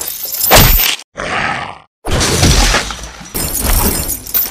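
Monster-fight sound effects: loud crunching and breaking noises, cut off by about a second of near silence before starting again.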